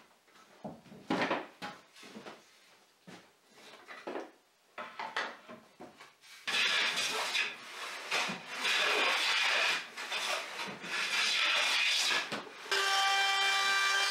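Wooden knocks and clatter as a board is handled, then long loud rasping strokes of a hand tool rubbed along the wood. Near the end a compact trim router's motor runs with a steady whine for about a second and a half, then stops.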